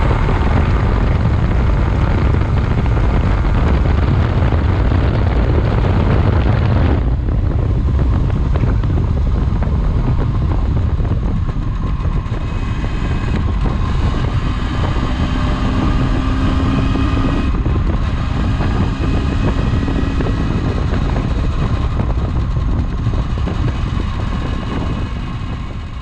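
MZ ETZ motorcycle's single-cylinder two-stroke engine, fitted with a 125 cylinder and piston and a Vape ignition, running under way at road speed, with heavy wind rush on the microphone. The engine note dips briefly three times and fades near the end.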